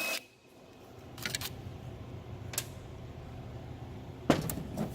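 A few short clicks and knocks of hand tools and metal parts being worked while a part is taken off a truck DEF pump, the busiest clatter near the end, over a steady low hum.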